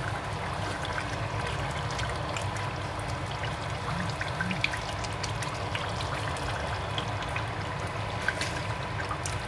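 Chicken and shaki stew simmering in a steel pot, a steady bubbling with small pops scattered throughout as a ladle moves through it.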